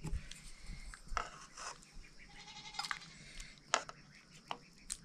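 A goat bleating a few times, with several sharp clicks.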